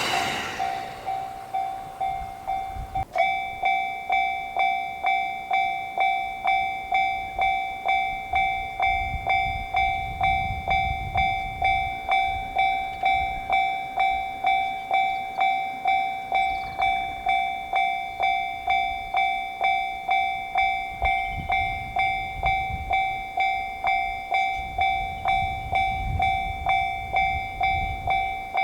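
Japanese railroad crossing warning signal ringing its repeated 'kan-kan' strikes at an even pace of about one and a half to two a second, growing louder and fuller about three seconds in. A low rumble swells underneath twice.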